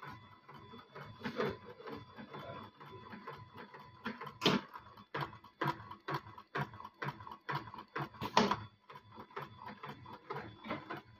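Dürkopp Adler 221 long-arm industrial sewing machine stitching slowly, each stitch a separate mechanical clack. The clacks are quieter and sparse at first, then come about two to three a second and louder from about four seconds in, over a faint steady tone.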